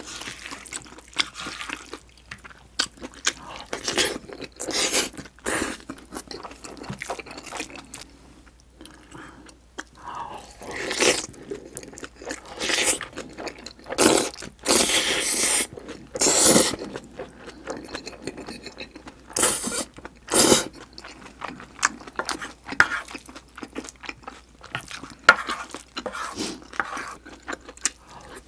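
Close-miked eating of fried rice: wet chewing and mouth clicks, with a wooden spoon scraping a stainless steel pan. A few louder slurps come around the middle as noodles are sucked in.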